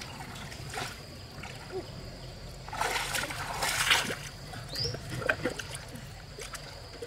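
Shallow pond water splashing and sloshing in irregular bursts, the biggest about three to four seconds in, with a faint steady high tone behind it.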